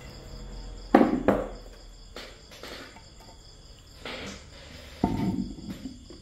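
Several sharp knocks and clinks as a short length of metal wire and needle-nose pliers are handled on concrete, the loudest about five seconds in. Under them, crickets chirp in a steady high pulsing trill.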